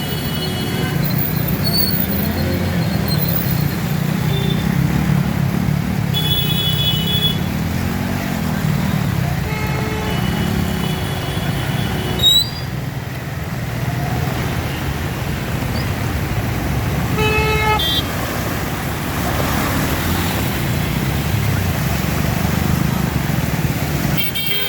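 Street traffic with engines running steadily and vehicle horns honking several times, each blast about a second long. A brief sharp sound comes about halfway.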